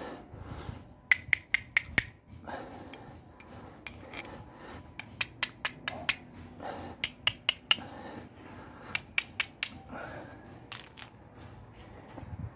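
An oval steel fire striker struck down the edge of a quartzite shard, testing it for sparks as flint and steel. The strikes come as several quick runs of four or five sharp scraping clicks.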